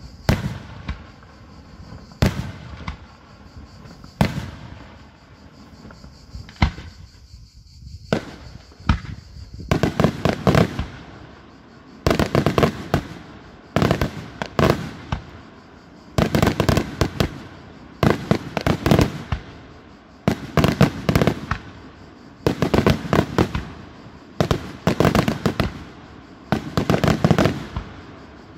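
Daytime aerial fireworks shells exploding overhead: single sharp bangs every couple of seconds at first, then from about ten seconds in, rapid strings of bangs that repeat roughly every two seconds.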